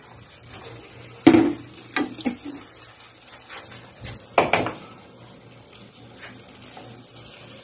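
Stainless steel ladle knocking against the side of a stainless steel Salad Master pot while stirring: a loud clank about a second in, two lighter knocks just after, and another clank about halfway through.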